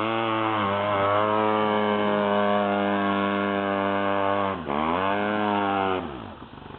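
Off-road vehicle engine revving hard and held at high revs, with a short sharp dip about four and a half seconds in before it climbs again. The revs fall away near the end.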